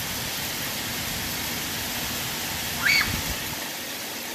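Heavy rain pouring steadily onto a flooded street. About three seconds in comes a short, high-pitched squeal that rises in pitch.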